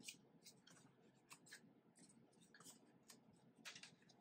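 Near silence with faint scattered clicks and scrapes of a plastic Nerf foam-dart blaster being handled, the plainest click a little before the end.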